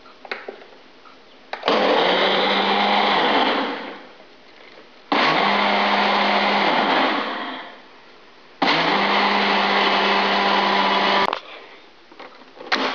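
Nutri Ninja blender motor blending a loaded single-serve cup in three bursts of two to three seconds with short pauses between them. The first two bursts wind down and the last cuts off sharply near the end.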